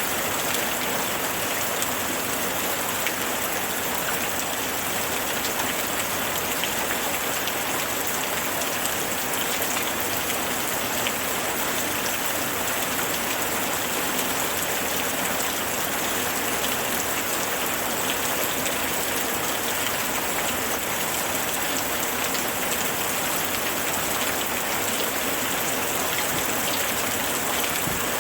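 Steady rain falling, an even hiss with scattered patters of drops landing on a surface.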